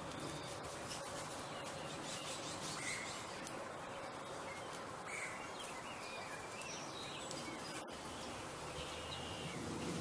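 Outdoor backyard ambience: a steady hiss with a few short, faint bird chirps scattered through it.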